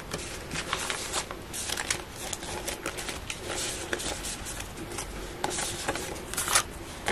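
Plastic-feel polymer banknotes rustling and crinkling as they are handled, sorted and flicked through one by one, with many short irregular clicks.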